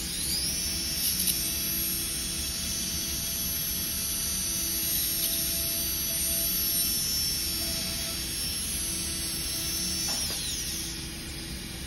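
Dental handpiece spinning a bur while trimming a polycarbonate crown form: a high steady whine that winds up at the start and winds down about ten seconds in.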